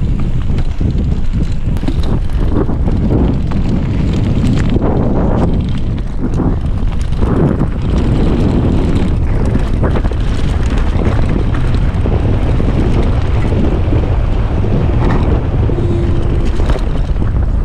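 Wind buffeting a GoPro Hero 5 Session's microphone as a mountain bike rides fast down a dirt forest trail, with tyre rumble and frequent short rattles and knocks from the bike over bumps.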